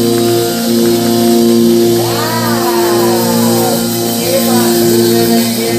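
Music with steady held chords, and a voice singing long sliding notes about two seconds in and again near the end.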